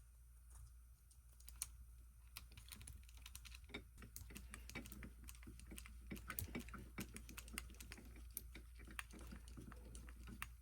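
Faint, irregular small clicks and taps of hands handling and fitting small RC crawler parts: plastic and metal mount pieces and screws on the axle.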